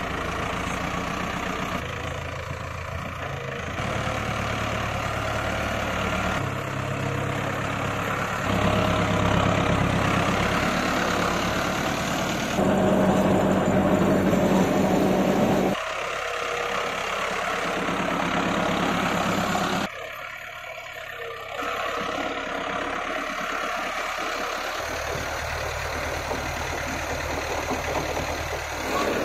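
Tractor's diesel engine running while working soft, wet field soil, its loudness and pitch shifting in steps every few seconds as the load changes.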